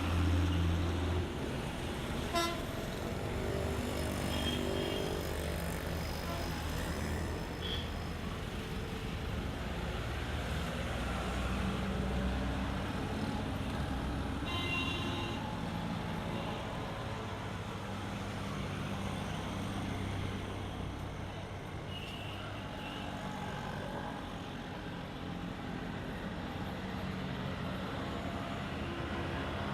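City street traffic: a steady wash of car and truck engines and tyre noise, with a low engine rumble close by in the first second. Several short car horn toots sound through it.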